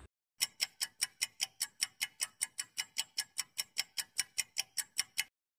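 Clock-ticking sound effect counting down the answer time in a quiz: evenly spaced sharp ticks, about five a second, starting a moment in and cutting off suddenly near the end.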